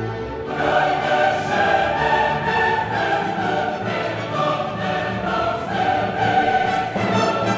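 Background music: a choir singing sustained notes over an orchestra, swelling up about half a second in.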